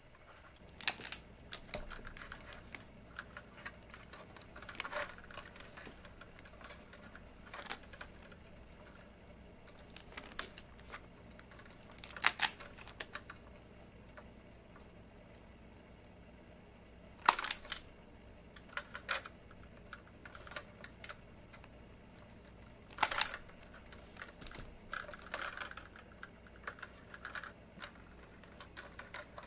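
Scattered small clicks and knocks from hands working on a fluorescent shop-light fixture: metal parts and wiring being handled during a ballast replacement, with a few sharper knocks. A faint steady low hum sits underneath.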